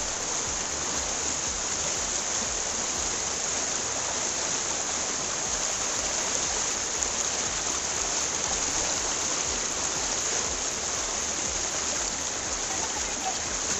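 Fast, shallow river rushing over boulders in white-water rapids: a steady, even rush of water.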